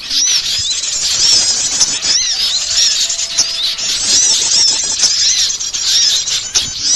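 A dense chorus of many small songbirds chirping and twittering at once, their short, high, arching calls overlapping without pause. This is a bird-lure (pikat) recording of noisy small garden birds, played to draw in other small birds.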